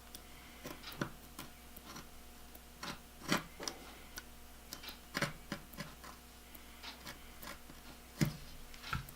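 Scattered light clicks and taps of small hand tools and parts being handled on a workbench, with louder knocks about three seconds in and near the end.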